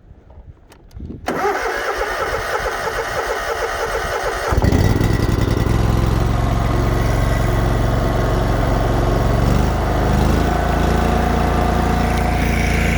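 Kawasaki FS commercial V-twin engine on a zero-turn mower being started. The starter cranks for about three seconds, then the engine catches and settles into a steady run, with a slight change in pitch around ten seconds in.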